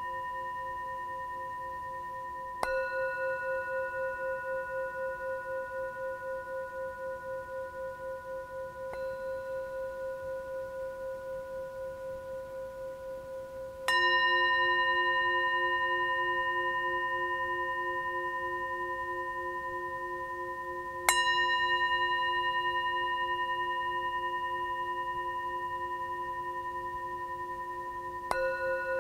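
Background music of slow, ringing struck tones, a new one about every seven seconds, each held long and slowly fading with a wavering pulse.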